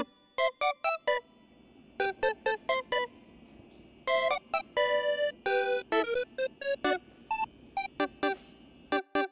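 Background music: a light melody of short, separate notes, with a brief pause about a second in.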